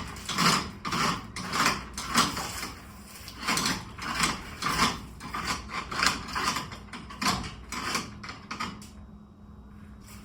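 A metal mechanism clicking or ratcheting in repeated strokes, about two a second, stopping about nine seconds in.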